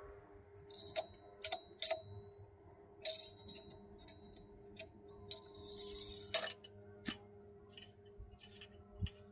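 Scattered light metallic clicks and clinks, a handful spread over several seconds, some leaving a brief high ringing, over a faint steady hum.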